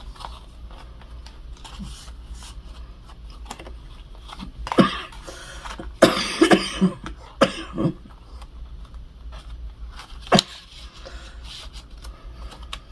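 A person coughing in fits: one cough about five seconds in, a quick run of several coughs a second later, and a last one near ten seconds. A lingering cough from a recent illness.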